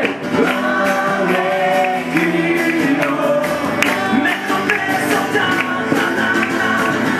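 Live band playing a song: strummed acoustic guitars under a steady beat, with a lead singer singing through the PA.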